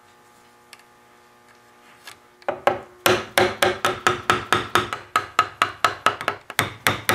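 Wood chisel driven by quick, light hammer taps, chopping waste out of a mortise in a wooden chair rail. The taps start about two and a half seconds in and come at about four a second.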